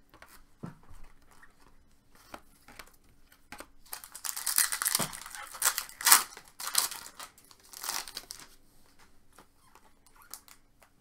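Plastic trading-card packaging being torn open and crinkled, a dense burst of crinkling about four seconds in after a few light clicks of cards being handled.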